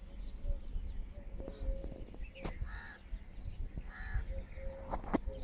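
A crow cawing twice, two harsh calls about a second and a half apart, over a low rumble.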